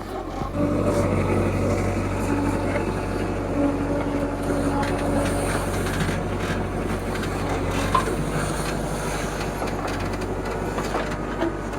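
Heavy diesel machinery engine running steadily under load, with its pitch shifting a little, and a sharp clank about eight seconds in.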